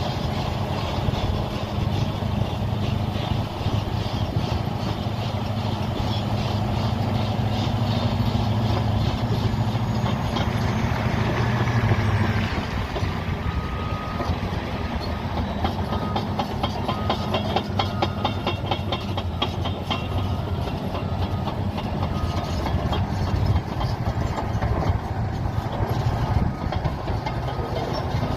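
Caterpillar D7E bulldozer working, its diesel engine running with a steady heavy drone under dense rapid clatter. The deep engine note eases about halfway through.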